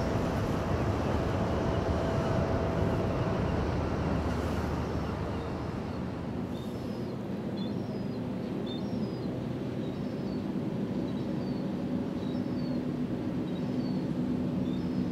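Steady low rumble of a cruise ship's engines and machinery in the dock, with a small bird chirping in short, repeated calls from about halfway through.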